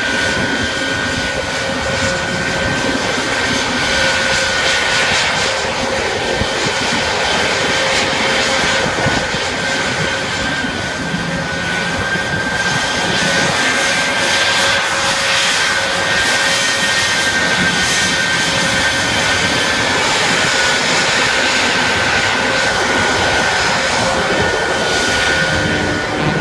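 Jet truck's jet engine running steadily: a high whine over loud, even engine rush.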